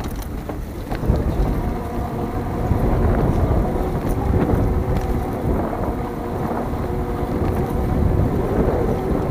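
Wind buffeting the microphone on a moving electric bicycle, a steady low rumble, with a faint steady whine underneath from about two seconds in.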